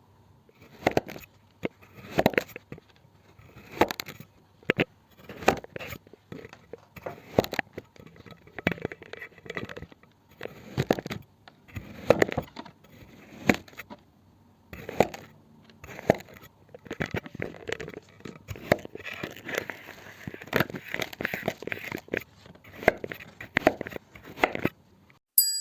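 Pink sand being crushed and worked for ASMR, giving a string of irregular crackling, crunching strokes, about one or two a second and thicker for a few seconds near the end. A bright ding sounds right at the close.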